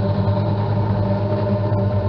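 Noise-and-drone sound art: a steady drone of several held low tones, deepest and strongest near the bottom, over an even hiss, without any change.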